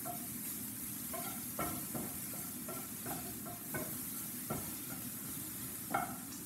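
Chopped vegetables sizzling in oil in a frying pan while a wooden spatula stirs them, with short scrapes and knocks against the pan every second or so.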